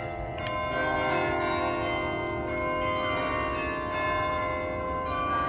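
Bok Tower's carillon bells playing a slow melody, a new note struck about once a second and each ringing on under the next.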